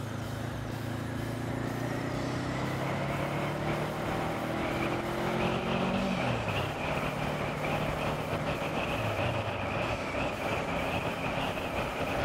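Honda CB500F's parallel-twin engine pulling hard through a gear, its pitch climbing steadily for about six seconds, then dropping at an upshift and climbing again. Wind and road noise build with the speed.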